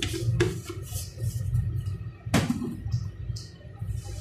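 A jar of ground spice rattling as it is shaken over a bucket of mayonnaise in the first half-second, then one sharp knock about two and a half seconds in, over a steady low hum.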